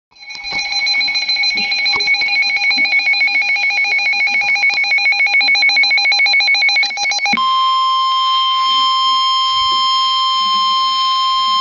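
Emergency Alert System tones: about seven seconds of rapid electronic chirping data bursts (the SAME alert header), then an abrupt switch to the steady single-pitched 1050 Hz weather radio warning alarm tone.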